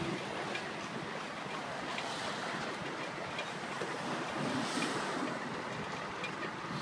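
Steady rushing wind and rolling noise of a ride in an open horse-drawn carriage, with a few faint irregular clicks.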